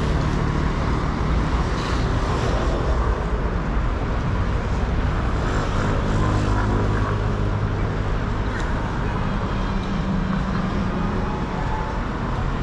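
City road traffic: a steady wash of car engines and tyre noise, with a low engine hum underneath.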